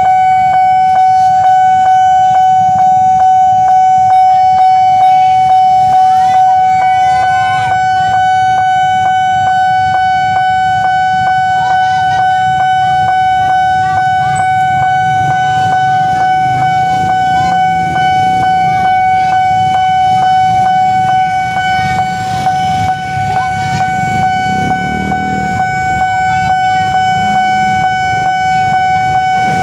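Railway level-crossing warning bell sounding continuously in one steady high tone, signalling an approaching train. Motorcycle engines idle underneath.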